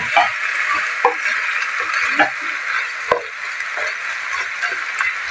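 Broccoli, bell pepper and meat sizzling in a hot nonstick wok while a spatula stirs them, with a scrape or knock of the spatula against the pan about once a second.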